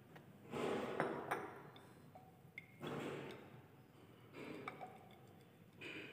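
Faint swishing of dilute hydrochloric acid shaken by hand in a glass test tube with an undissolved solid, in four bursts about a second and a half apart, with a few light glass clinks.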